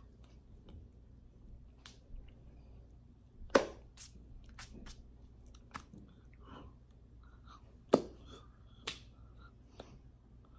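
Soft clicks and smacks of hands and mouth from a person signing, with sharp slaps about three and a half, eight and nine seconds in.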